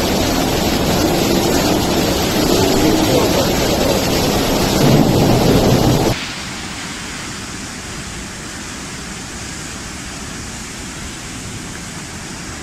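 Fast floodwater rushing down a street, a loud steady rush of water. About six seconds in it cuts abruptly to a quieter, steady rush of water.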